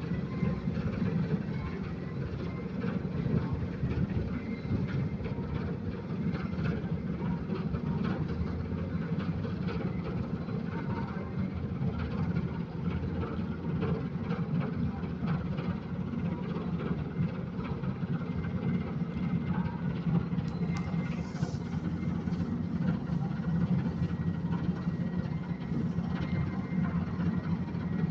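River cruise ship's engines running with a steady low rumble while it manoeuvres, with no breaks or changes in pitch.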